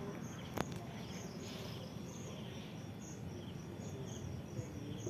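Insects chirping in a steady high-pitched pattern, about twice a second, over low background noise, with one sharp click just over half a second in.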